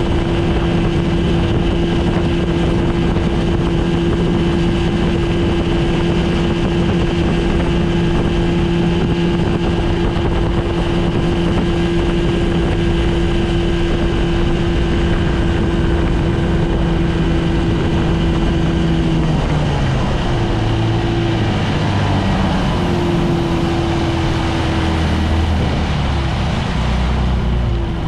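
A 1971 Evinrude Sportster 25 hp two-stroke outboard running hard at a steady high note. About two-thirds of the way through, its note drops lower and turns unsteady.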